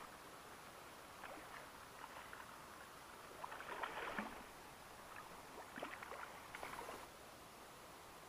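A hooked trout thrashing and splashing at the surface of shallow water as it is brought to hand, in two bursts about three and six seconds in, with small splashes between.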